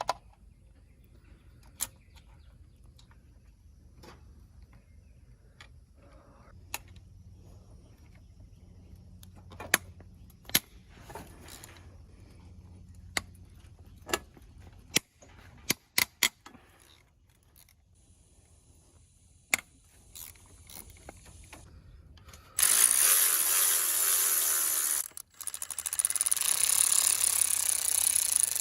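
Scattered metallic clicks and knocks of hand tools and engine parts during top-end disassembly of an ATV engine, then, about 22 seconds in, a loud power tool runs for a couple of seconds, stops briefly, and runs again.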